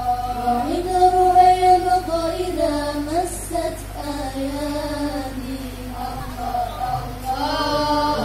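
A high singing voice holding long notes that bend and slide in a slow, melismatic melody.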